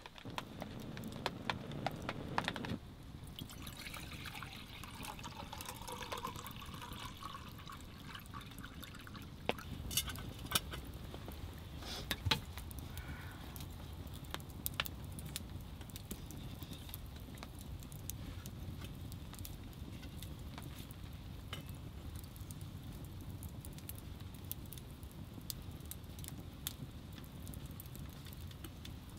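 A man blowing steadily on smouldering kindling to bring a new campfire to flame, for the first few seconds; then the wood fire burning with scattered crackles and a few louder pops about ten to twelve seconds in.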